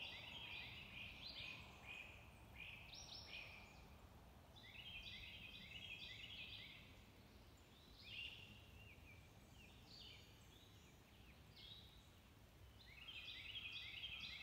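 Faint songbird chorus: several birds singing overlapping songs, each a quick run of high, short notes, repeating every second or two.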